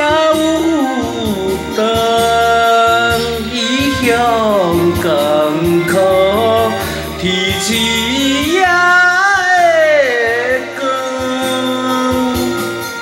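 A man singing a Taiwanese Hokkien song into a microphone, holding and bending long notes, over a karaoke backing track.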